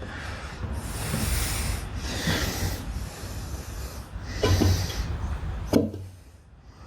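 Motor oil being poured from a bottle into a 2009 Harley-Davidson Electra Glide's oil tank during an oil change, coming in uneven surges and dying away near the end.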